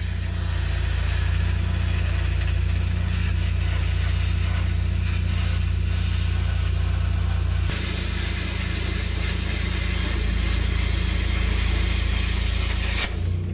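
Plasma cutter hissing as it cuts through the sheet-metal floor pan of a truck cab. The hiss gets louder and brighter about eight seconds in and cuts off near the end. Underneath is the steady low drone of the Miller Legend engine-driven welder-generator that powers the cutter.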